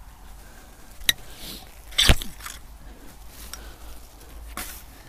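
Digging fork driven into garden soil and levered up, crunching and scraping. A sharp click comes about a second in, a louder crunch about two seconds in, and another near the end.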